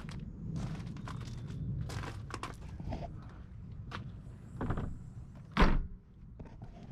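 Footsteps and small knocks, then one loud, deep thunk about five and a half seconds in.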